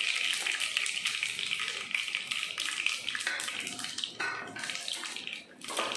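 Hot oil sizzling and crackling in a pan around a South Indian tempering of mustard seeds, cumin, urad and chana dal, with halved dried red chillies just added: a dense, fast crackle that eases off slightly toward the end.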